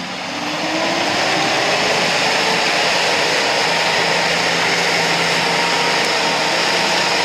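Electric winch on a Nissan 4x4 whining steadily under load as it hauls the vehicle up the slope. The whine rises in pitch over the first second, then holds.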